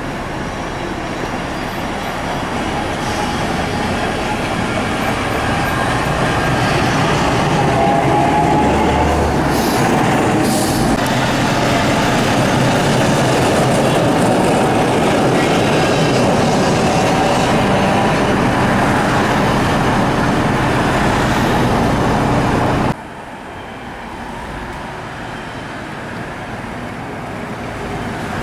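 Peter Witt-style DL-3000 series tram approaching and passing close by, running on its rails, louder over the first several seconds and then steady. About 23 seconds in the sound drops abruptly to quieter road traffic.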